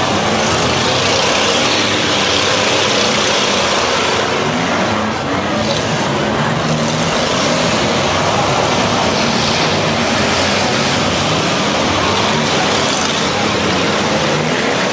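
Demolition derby cars' engines running and revving unevenly as the cars drive and push in the mud arena, over a steady din of crowd voices.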